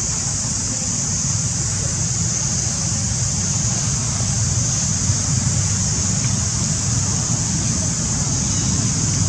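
Steady wind rumble buffeting the microphone, with a constant high-pitched hiss above it.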